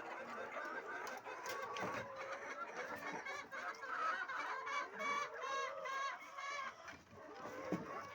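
A flock of laying hens clucking together, with one bird giving a run of loud, evenly repeated calls about halfway through and a few short knocks.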